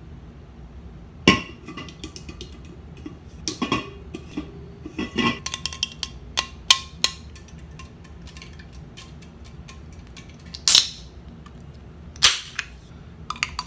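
Fingernails clicking and picking at the pull tab of an aluminium soda can, a run of sharp metallic ticks with a slight ring. About eleven seconds in the can cracks open with a short hiss, and a second short hiss follows a second and a half later.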